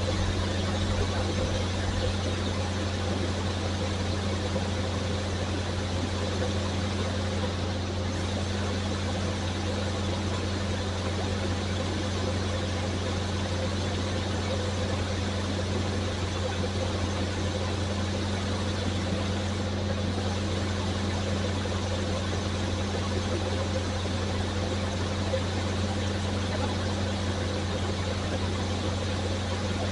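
1975 Corvette's 350 small-block V8 idling steadily, with an even low drone that does not change. The engine is running to bleed air from the cooling system after a new aluminum radiator was fitted.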